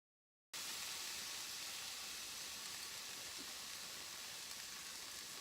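Snap peas and garlic sizzling in grapeseed oil in a hot cast-iron skillet: a steady hiss that starts abruptly about half a second in after a moment of silence.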